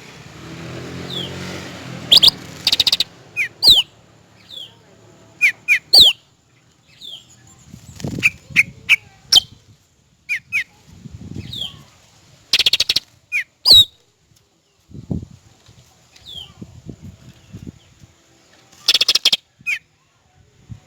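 Cucak rante bird calling: repeated short, sharp whistled notes that fall in pitch, many given in quick pairs. A few loud harsh calls come out about two and a half, thirteen and nineteen seconds in, with low rustling between the notes.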